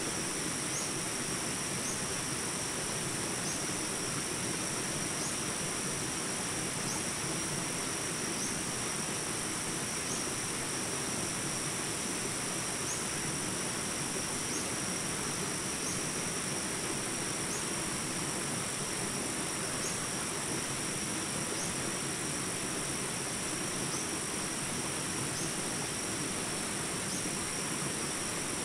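A steady, high-pitched insect chorus over an even hiss, with a short chirp repeating every second or two.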